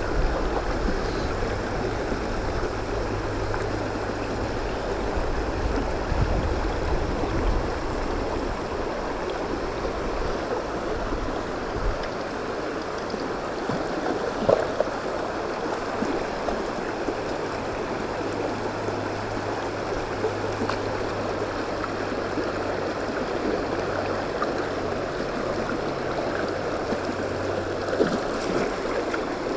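Shallow, stony stream rushing steadily over rocks around the wader, with a brief splash about halfway through.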